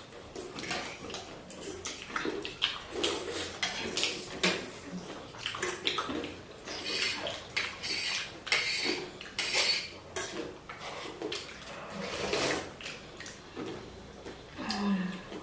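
Eating at bowls of chicken thukpa noodle soup: spoons and forks clinking against the bowls again and again, with wet slurping sounds.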